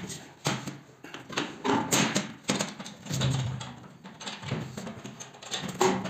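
Irregular clicks, knocks and light rattles of a steel panel radiator and its metal pipe fittings being handled and fitted by hand, with a couple of brief low hums in between.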